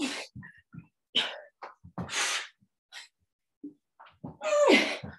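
A woman's short, sharp exhalations and puffs of breath as she does jumping skater-to-jack cardio, with a few dull thumps of her feet landing and a voiced grunt just before the end.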